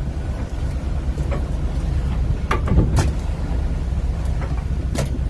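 Steady low rumble of wind buffeting the microphone and the fishing trawler running through heavy seas, with a few sharp knocks, about two and a half, three and five seconds in.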